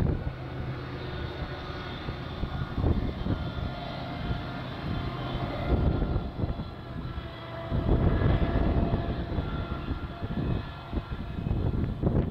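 BNSF diesel locomotives working the grade, heard from a distance as a steady low engine drone with a rough rumble. A faint thin high squeal runs for a few seconds midway.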